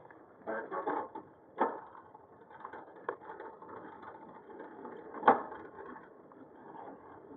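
Ride noise from a bicycle with a handlebar-mounted action camera: a low rattling rumble broken by a few sharp knocks, the loudest a little after five seconds in.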